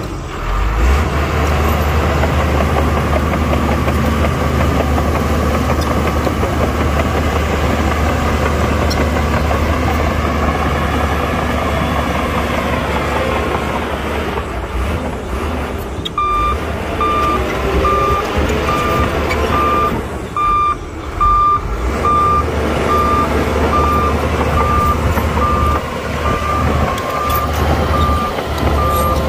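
Heavy diesel earthmoving machinery running steadily. About halfway through a reversing alarm starts, beeping evenly about one and a half times a second over the engine noise.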